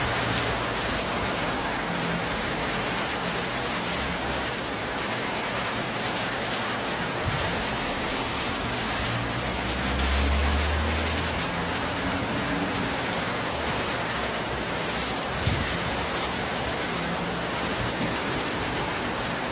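Heavy rain falling steadily in a wind-driven storm, with a slight swell in loudness about halfway through.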